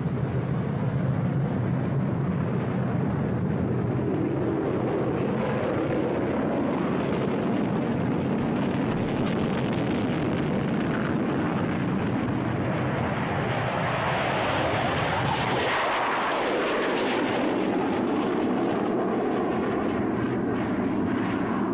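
Jet noise from the British Aerospace EAP's twin RB199 afterburning turbofans on a takeoff run with afterburner lit: a loud, steady rushing noise that swells and grows brighter about fifteen seconds in, then carries on as the jet climbs away.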